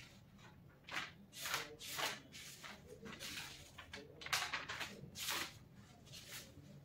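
Paper pages being turned and handled: a series of soft rustles, roughly one a second.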